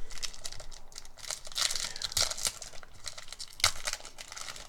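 Foil booster-pack wrapper of trading cards being torn open and crinkled: a dense crackling rustle with many sharp crackles, the sharpest a little past the middle.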